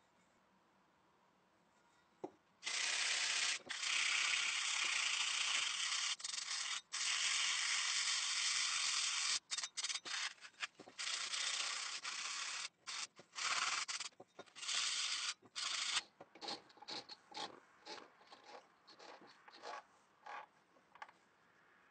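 Abrasive rubbing on a rusty metal tool blade: rust being scoured off. It starts about two and a half seconds in as a continuous scrubbing with short breaks, then turns into separate short strokes from about 16 seconds in.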